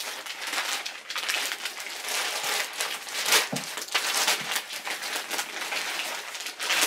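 Packaging crinkling and rustling as layers of wrapping are pulled off an item by hand, in irregular bursts of crackle throughout.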